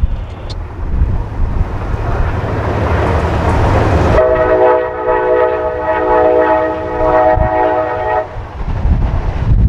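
Diesel freight locomotive's air horn sounding one long blast of about four seconds, several notes held together, then cutting off. Before the blast, the rumble of the approaching CSX train grows louder, with low wind buffeting on the microphone.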